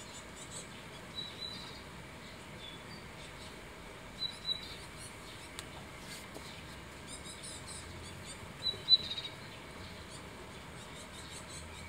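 Great tits giving short high chirps at a seed feeder, in three brief bouts a few seconds apart, the last the loudest, with a few faint clicks between them.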